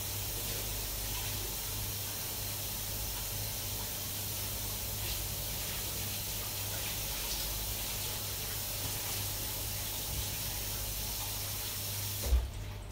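Kitchen tap running steadily into a sink, shut off shortly before the end and followed by a single knock.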